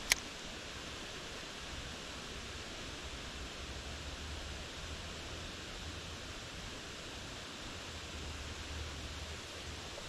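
Steady rush of flowing creek water, with one sharp click right at the start.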